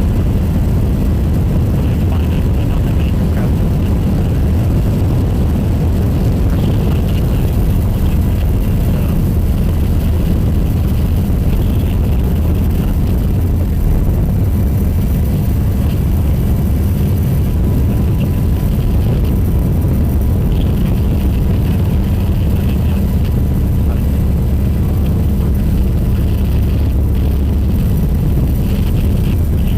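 Steady, loud engine drone of an aircraft in flight, with a heavy low rumble that holds even throughout.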